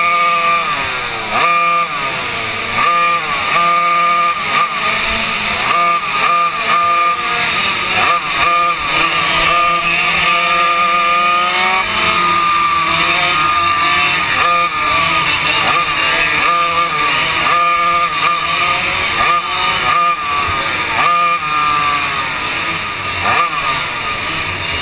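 Yamaha KT100 two-stroke racing kart engine heard from onboard, its pitch repeatedly rising and falling as it accelerates down the straights and drops off into the corners, with other karts' engines running close by.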